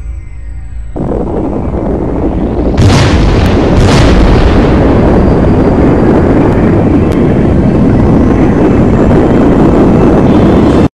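Cinematic explosion sound effect: a swelling rush of noise, two sharp cracks about a second apart, then a long, loud, deep rumble that cuts off suddenly near the end.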